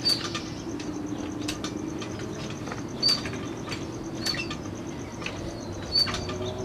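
Lever bead breaker of a TMT4 tire changing machine being worked against a motocross tire's bead: a series of sharp clacks about every second and a half, each with a short high squeak, over a low steady hum.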